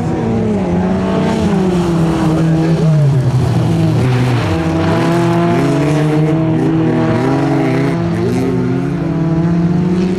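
Engines of two folk-race cars revving hard on a gravel track, more than one engine heard at once, their pitch rising and falling as they accelerate and lift. The pitch drops sharply about four and a half seconds in, then climbs again.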